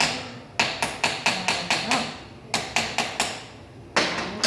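Small hammer tapping rapidly on a Victorinox pocketknife being assembled: a quick run of sharp metallic taps, a pause, four more taps, then one harder strike near the end. The hammering tightens the loose part so that the tool stops wiggling and clicks in with a higher sound.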